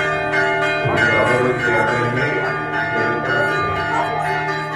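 Church bells ringing, several tones sounding together and ringing on without a break.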